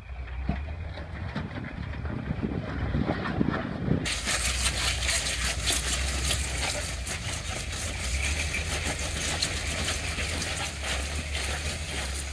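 Rock-crawling Jeep's engine running low and steady as the Jeep creeps over a rock ledge. About four seconds in a loud steady hiss sets in over it.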